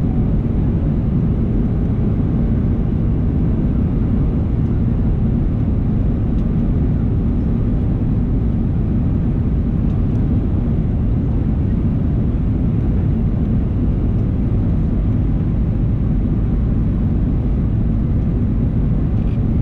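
Steady cabin noise inside a Boeing 737-800 on approach: the low rumble of airflow and its CFM56-7B engines, heard from a window seat beside and behind the wing.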